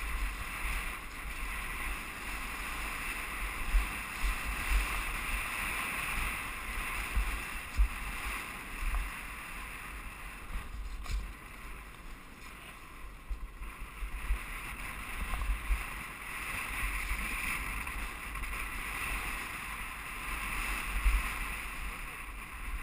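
Wind rushing over a helmet-mounted action camera on a fast downhill mountain-bike run, with low thumps and jolts from the bike riding over the rough street. The rush eases off for a few seconds about halfway through.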